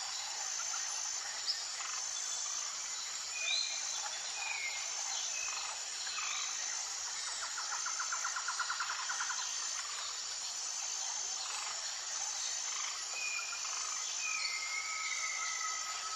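Tropical forest ambience: a steady chorus of insects with a pulsing high buzz repeating about every second and a half, scattered short bird chirps and whistles, a rapid trill about seven seconds in, and a long steady whistle near the end.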